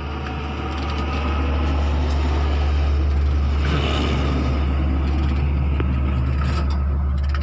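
Terex TA400 articulated dump truck's diesel engine running, swelling over the first second or two into a steady loud drone, with a brief hiss about four seconds in. It is running for a ground test of the newly fitted orbitrol steering valve.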